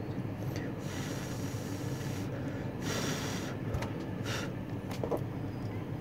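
A person breathing out in two long hissing breaths, with a short third near the middle, over a steady low room hum.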